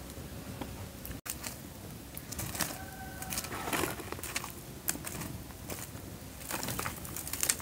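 Sticks scraping and knocking through a bed of charcoal embers, with scattered rustles, scrapes and light clicks that come in two busier spells.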